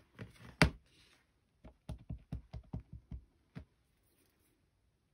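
A sharp click about half a second in, then about ten quick, light taps of a rubber stamp on an acrylic block being dabbed against an ink pad to ink it.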